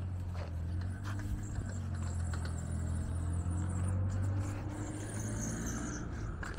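A motor vehicle's engine running steadily with a low hum that eases a little near the end, with a few sharp knocks from the street.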